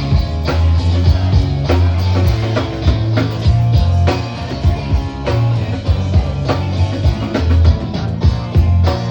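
Rock band playing live: heavy bass, electric guitar and a drum kit hitting a steady beat, loud throughout.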